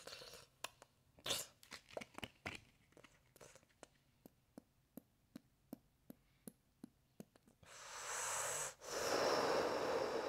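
A run of single sharp clicks, two or three a second, that stop about seven and a half seconds in. Then a loud breathy rush of noise, broken once by a short gap.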